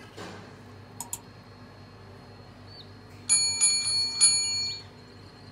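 Notification-bell sound effect of a subscribe-button animation: a small bell rings in several quick strikes for about a second and a half, after two quick clicks about a second in.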